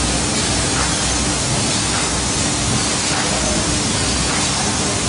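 UV varnish curing line running: a steady, even hiss of machine air noise with a faint low hum underneath.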